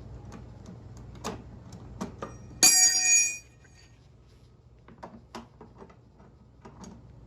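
Light knocks and clicks of parts and tools being handled, then a single loud metallic clang that rings for under a second: a metal tool or part striking something hard.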